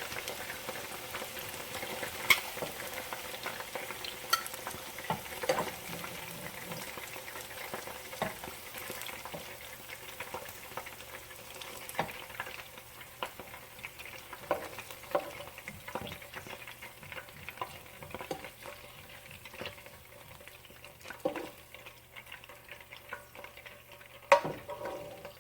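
Seasoned chicken pieces frying in hot oil in a pan: a steady sizzle, with scattered clicks and scrapes of a utensil against the pan as the pieces are turned and lifted out. The sizzle grows fainter near the end.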